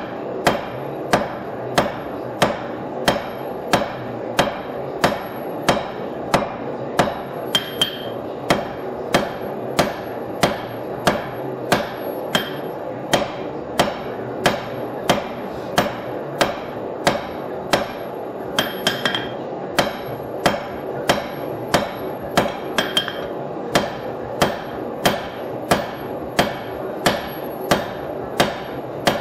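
Hand hammer striking a red-hot leaf-spring steel bar on an anvil in steady blows, about two a second, flattening and drawing out the steel. A few blows ring briefly and high, and a steady hum runs underneath.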